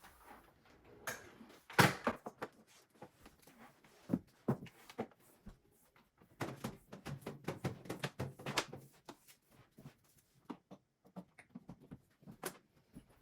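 Handling noise: irregular light knocks, taps and rustles, with one sharper knock about two seconds in and a busier run of taps in the middle.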